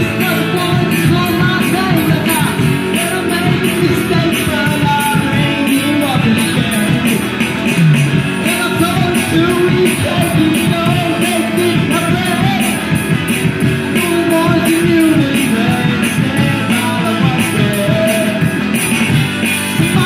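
Live amateur rock band playing a song: electric guitars, bass guitar and a drum kit keeping a steady beat, with a singer, in a rough, low-quality recording.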